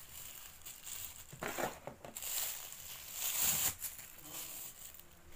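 Thin plastic carrier bags rustling and crinkling as strips of them are pulled and looped together by hand. The rustling comes in two stretches, the louder one just past the middle.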